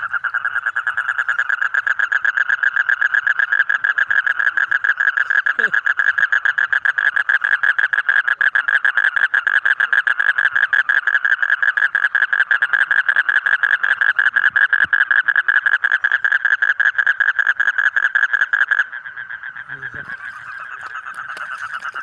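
A toad calling at close range: one long, unbroken trill of rapid pulses, which stops suddenly about 19 seconds in. A fainter trill carries on after it.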